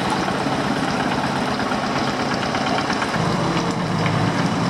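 Truck engine running low and steady, growing louder about three seconds in as it comes nearer, over a steady background hiss.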